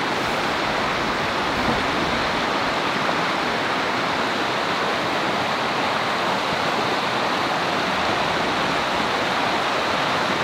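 Steady, even rushing of flowing river water, with no break or change.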